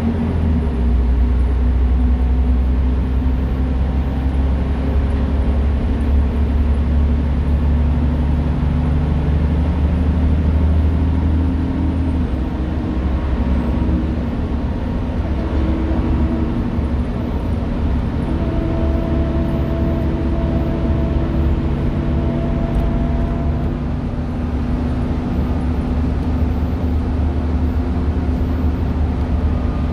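Volvo B9SALE articulated bus's diesel engine and ZF Ecomat automatic gearbox heard from inside the passenger cabin while the bus is under way: a steady, deep drone with a few whining tones. The engine note drops and settles lower about twelve seconds in.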